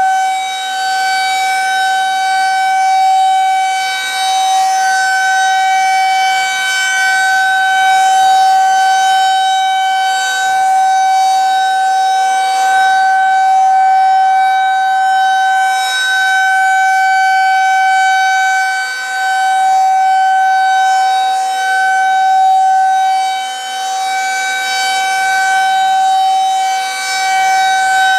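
Federal Signal outdoor warning siren sounding a long steady alert tone during a full siren test, one held pitch with strong overtones that swells and dips slightly in loudness.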